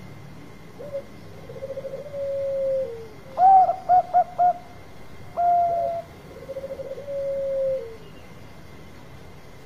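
Zebra dove of the Bangkok perkutut type cooing: twice a short rolling trill running into a long falling coo, and between them loud higher notes, one drawn out and followed by three quick short notes, then a single note.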